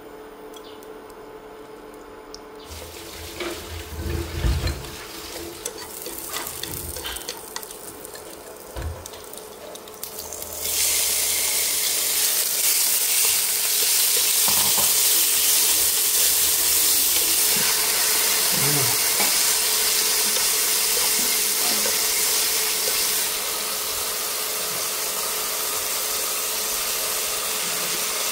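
Sliced beef and shallots frying in oil in a frying pan: a soft sizzle with a few low knocks from about three seconds in, turning into a loud, steady sizzle at about eleven seconds that eases slightly near the end.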